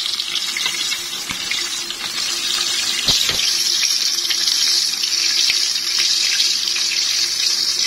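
Batter-coated chicken strips deep-frying in hot oil: a steady sizzle of bubbling oil, with a couple of light knocks about three seconds in.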